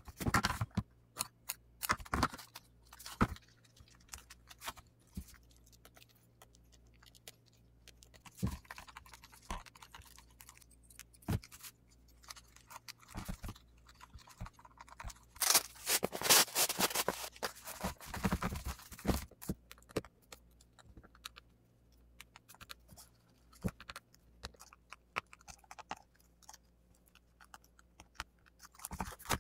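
Gloved hands pressing and smoothing prepreg carbon fibre cloth onto a moulded part: scattered crackles and crinkles of the tacky fabric, with a longer, louder stretch of dense crinkling a little past halfway.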